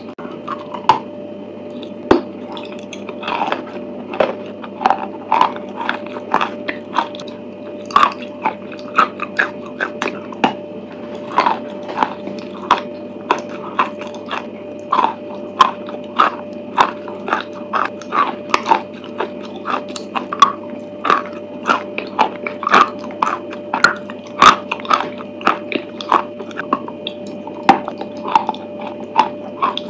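Close-up wet chewing and biting of a chalk paste with marshmallow inside: sticky mouth clicks and squishes, irregular, about one or two a second, over a steady background hum.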